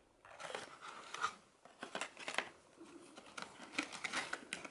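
Paper business cards rustling and tapping against a cardboard box as they are put back in by hand: a run of soft, irregular clicks and rustles.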